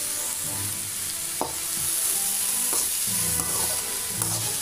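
Chopped onions sizzling in hot oil in a kadai as a spatula stirs them, with a couple of sharp clinks of the spatula against the pan.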